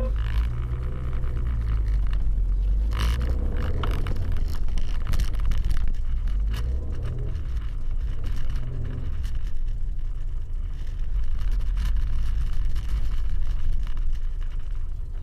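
Car engine and road rumble heard from inside the cabin, steady and low, with a few light clicks and knocks.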